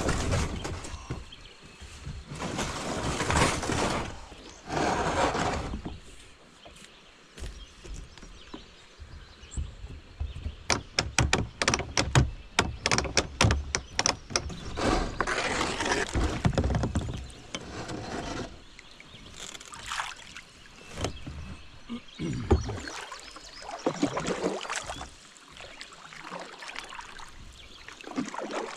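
A kayak being boarded and pushed off a sandy, rocky bank: scraping, then a quick run of clicks and knocks. Then a double-bladed paddle dipping and splashing in calm water, one stroke every second or two.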